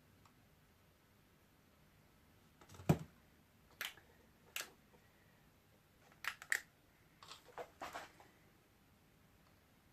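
Small clicks and taps from handling tools and parts at a soldering bench, about ten of them spread over several seconds, the loudest a dull knock about three seconds in, the rest in short clusters.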